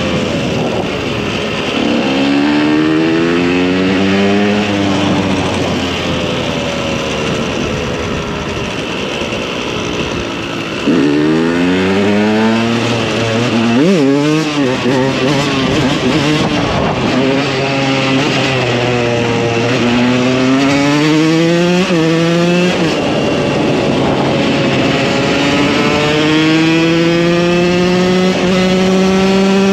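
KTM 125 EXC two-stroke single-cylinder engine on a supermoto being ridden hard. Its pitch climbs again and again and drops back in steps as it shifts up through the gears. There is a sharp rev and drop about fourteen seconds in, and a long steady pull near the end.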